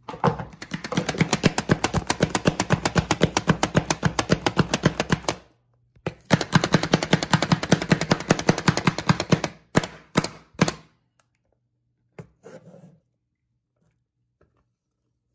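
Hand-pressed plunger food chopper chopping onion: rapid, even clattering strokes in a long run, a short pause, then a second run, followed by a few last strokes.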